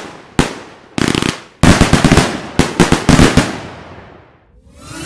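Aerial fireworks going off: a string of sharp bangs with crackling tails, densest in the second and third seconds, then fading away. A rising whoosh comes in near the end.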